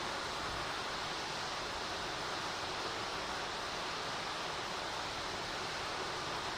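Waterfall: water falling and rushing, a steady, unbroken hiss.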